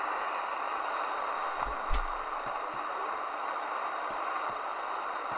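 Steady static hiss from a Midland Alan 8001 CB radio receiver between transmissions on the 27 MHz band. Scattered short clicks crackle through it, with a louder crackle about two seconds in.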